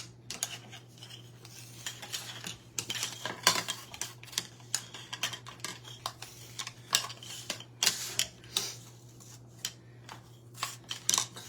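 Irregular light clicks and rustles of dried citrus slices and other garland pieces being pushed together along a string, over a steady low electrical hum.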